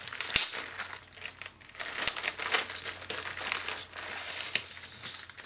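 Clear plastic packaging crinkling in irregular bursts as hands handle a sheet of alphabet stickers and slide it out of its plastic sleeve.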